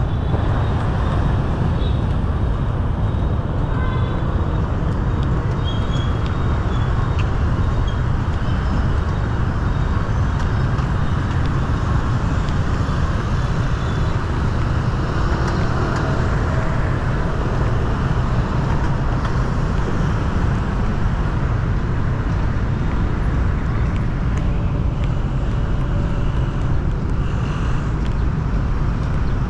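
Steady city street traffic: a continuous rumble of passing vehicles with no single standout event.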